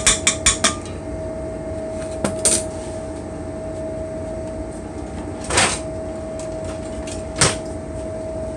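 A metal spoon rapped a few times in quick succession on the rim of a stainless steel mixing bowl to knock off stuck tomato paste, then scattered kitchen knocks and a clatter further in, over a steady hum.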